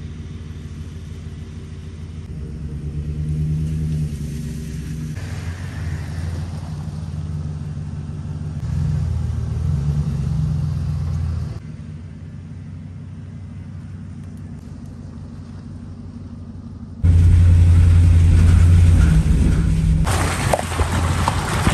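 Full-size cargo van's engine running at low speed as the van turns around and creeps along a muddy dirt track, in several short segments that change abruptly. About 17 seconds in it becomes louder, heard from inside the cab as the van drives along the track.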